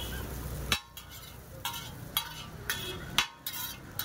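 Steady frying sizzle on a hot flat iron griddle that cuts off abruptly under a second in; then a metal spatula clinks and scrapes against the griddle about five times, roughly one sharp ringing strike every half second.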